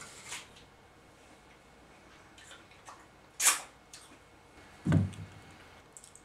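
Bites into a crisp green apple: a short crunch just after the start and a loud, sharp crunch about three and a half seconds in. A dull low thump follows about a second and a half later, with a few small clicks near the end.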